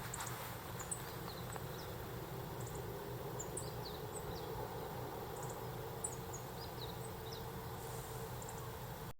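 Small birds chirping: scattered short, high calls over a steady low hum.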